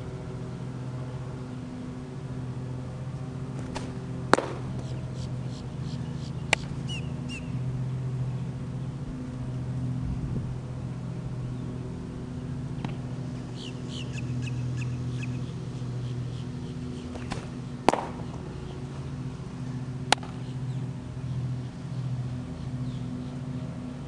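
Baseball smacking into leather gloves during a pitching session: two sharp pops about 13 seconds apart, each followed about two seconds later by a lighter one. A steady low hum and bird chirps run underneath.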